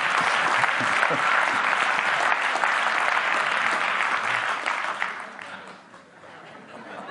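Large audience applauding, with laughter at the start; the applause dies away about five seconds in.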